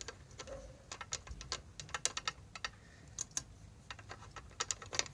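Irregular light metallic clicks and taps of a new brake pad being worked into a motorcycle brake caliper until it seats.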